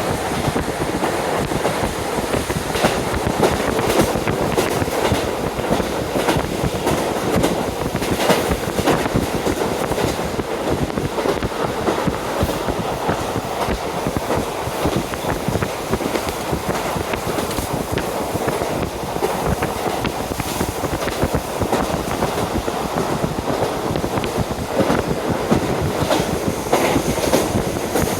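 KiHa 40 diesel railcar running at speed, heard from inside with a window open: a steady rumble of the train, with wheels clicking now and then over rail joints, and wind rushing in through the open window.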